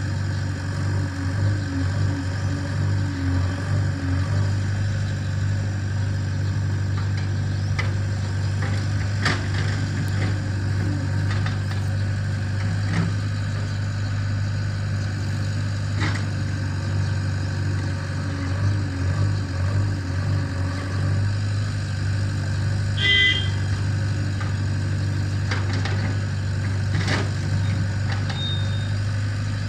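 A diesel engine running steadily at low revs, an even deep hum with no rise or fall in speed.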